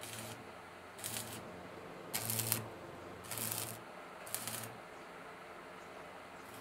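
Stick (arc) welding: the electrode arc crackles in five short bursts of about half a second each, with a low hum under each burst, as a flat steel strip is tack-welded to the rim of an oil-drum steel wheelbarrow tray. The bursts stop about three-quarters of the way in.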